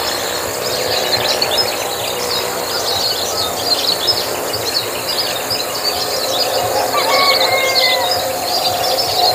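Many birds chirping rapidly in a tropical dawn chorus, with insects. About seven seconds in, one bird gives a couple of gliding whistled calls.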